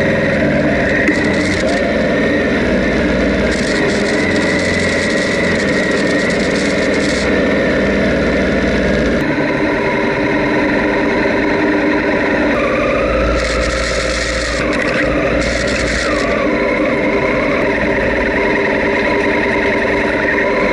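Honda Africa Twin's parallel-twin engine running at low speed off-road, its pitch rising and falling with the throttle, heard from a camera mounted on the bike, with stretches of hiss.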